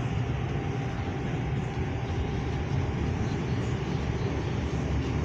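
New York City subway car on the 4 line running, a steady low rumble with a faint whine, heard from inside the car.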